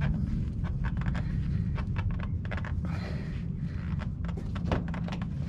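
A spin-on oil filter being hand-tightened through a microfiber rag: the cloth rubs and rustles on the canister, with scattered short clicks and scrapes. A steady low rumble sits underneath.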